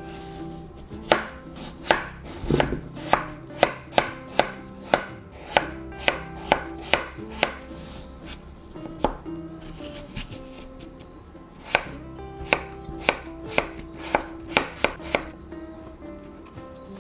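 Chef's knife cutting peeled raw potatoes into chunks on a bamboo cutting board: sharp knocks of the blade striking the board, about two a second. There is a first run, a pause of a few seconds with a single knock, and then a second run.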